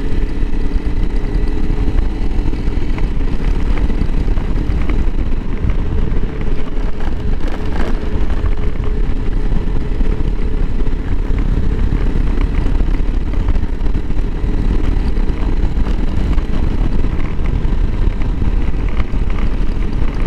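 Honda CRF300L Rally's single-cylinder four-stroke engine running steadily under way, mixed with a heavy low rumble of wind on the microphone.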